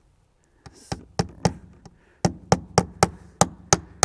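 Hammer driving a small aluminum trim nail through the groove of vented soffit: a few light taps to set the nail, then steady blows about three a second from about two seconds in.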